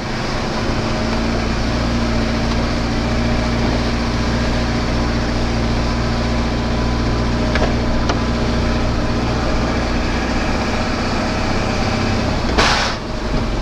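DAF LF truck's diesel engine running steadily, heard from inside the cab. Near the end the engine note drops and there is a brief harsh grating as a gear change is crunched with the manual gearbox.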